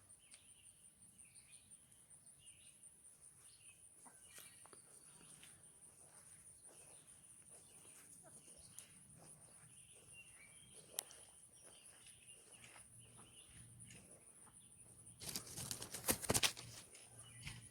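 Faint outdoor ambience: a steady high-pitched insect trill with scattered short bird chirps. Near the end comes a louder burst of rustling.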